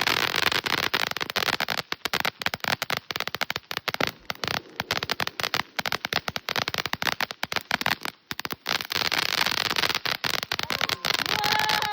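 Small consumer fireworks crackling: a dense, fast run of sharp pops and sizzles that thins for moments now and then. A short falling tone sounds near the end.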